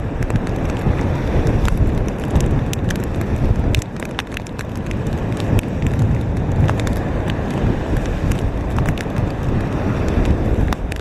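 Hurricane-force wind buffeting the microphone in a heavy, gusting rumble, with rain striking it in many sharp ticks. The wind drops briefly about four seconds in, then builds again.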